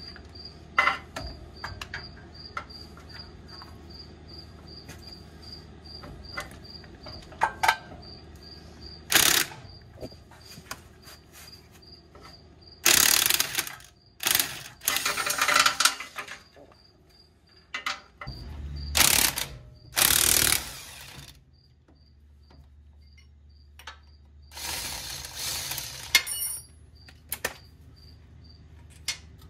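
Cordless impact driver running in about six short bursts, loosening the bolts of a pickup's front driveshaft, with a few metallic clicks of bolts and tools between them. Crickets chirp steadily in the background.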